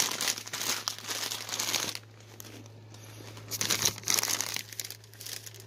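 Crinkling and rustling, as of something being handled close to the microphone, in two spells: through about the first two seconds and again around the four-second mark. A steady low hum runs underneath.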